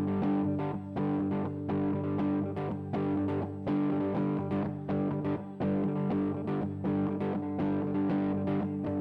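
Live worship band playing an instrumental intro: guitar picking a steady repeated pattern over sustained chords and bass.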